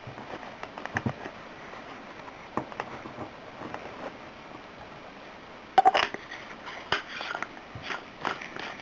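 A paper towel rustling and rubbing against an aluminium Maglite flashlight as its LED head is wiped clean, with scattered light taps and clicks from handling it. A louder run of clicks comes about six seconds in.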